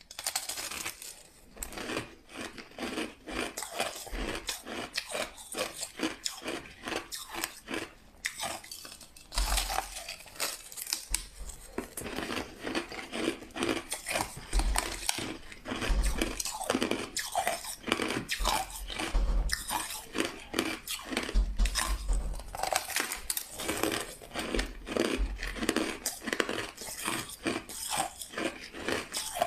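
Crushed ice being bitten and chewed, a dense, irregular run of loud crunches that starts abruptly.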